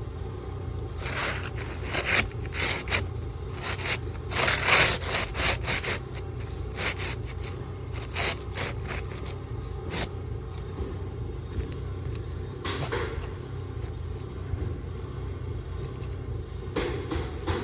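Asphalt roof shingles scraping and rustling as they are handled and slid on the roof, in irregular short scrapes bunched in the first six seconds with a few more later, over a steady low rumble.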